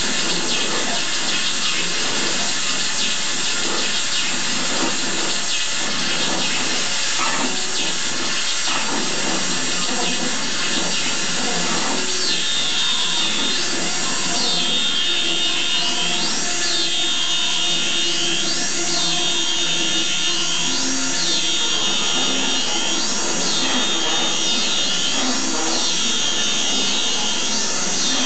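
Experimental noise music: a dense, steady wash of harsh noise. About twelve seconds in, a high tone joins it that dips and rises again about every two seconds.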